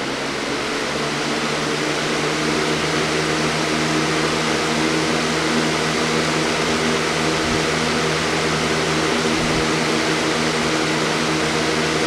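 Lasko 3733 20-inch box fan running on its medium setting: a steady rush of air with a low hum underneath, growing a little louder over the first couple of seconds as the blades come up to speed, then holding even.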